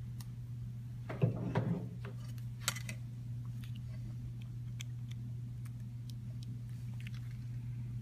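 Hands handling an iPod Touch on a countertop: a brief rustle about a second in, then a sharp click and a few lighter clicks, over a steady low hum.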